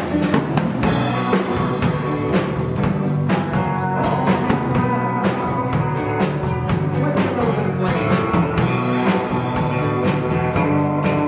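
Live rock band playing, with a drum kit keeping a steady beat under electric bass and electric guitars.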